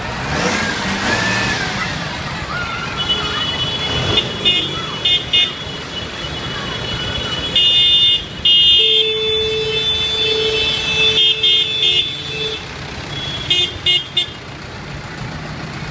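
Horns honking repeatedly over the running engines of passing farm tractors: a string of short and long high-pitched blasts, joined about nine seconds in by a lower horn held for several seconds.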